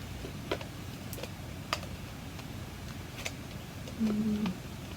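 Light clicks and taps of the plastic parts of a handheld vacuum cleaner's dustbin and filter being handled and fitted back together, a few scattered clicks about a second apart. A short low hum near the end.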